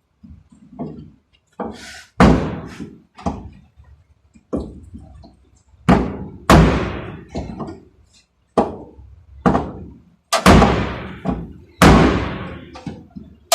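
Heavy knocks struck on car bodywork during panel repair, about one a second and unevenly spaced, each dying away in a short ring.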